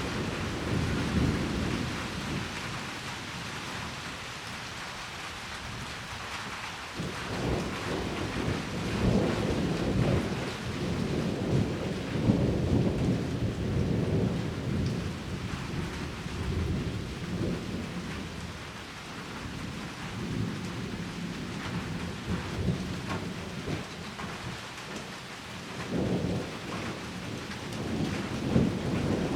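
Heavy rain pouring down steadily during a thunderstorm, with rolls of thunder rumbling low and long. The rumble swells about seven seconds in and builds again near the end.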